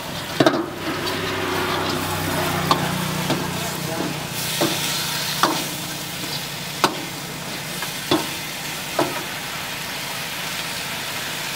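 Chicken masala sizzling in a black iron kadai while a long metal ladle stirs and tosses it. The ladle clanks and scrapes against the pan about eight times at uneven intervals, loudest about half a second in.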